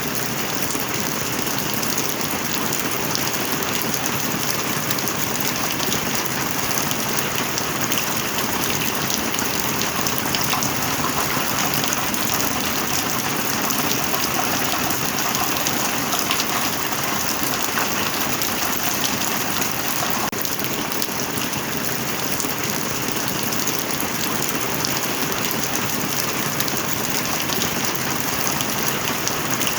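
Heavy rain falling steadily, a dense even hiss with many individual drops pattering on a hard surface.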